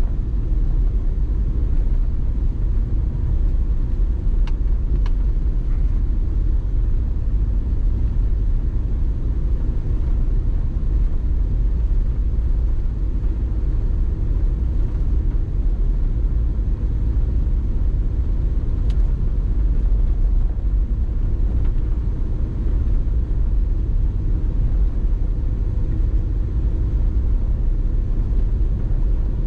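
Steady low rumble of engine and tyre noise inside the cab of a vehicle driving on a snow-covered road.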